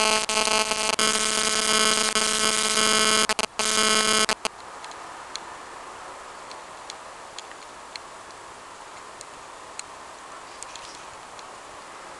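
A loud, steady buzzing tone that breaks off briefly once and cuts off suddenly about four seconds in, followed by faint room noise with a few scattered small ticks.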